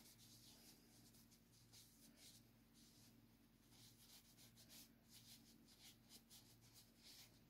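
Faint rubbing of a cloth on a spalted birch carving, many quick irregular strokes as food-safe wax is worked into the wood, over a faint steady low hum.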